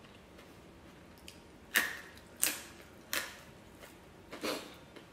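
Eating sounds close to the microphone while eating by hand: four sharp, wet clicks and smacks spread over the second half, the last a little longer and fuller.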